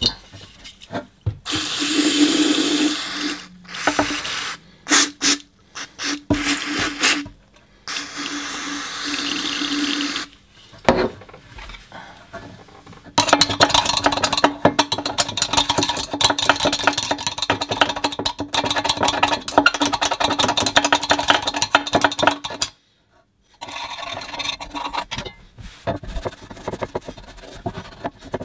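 Cleaning the grimy fuel tank and carburettor body of a Briggs & Stratton push-to-prime carb. First come a few short bursts of steady hiss, then about ten seconds of fast scrubbing strokes at the pumping chamber, and near the end a rag rubbing over the tank.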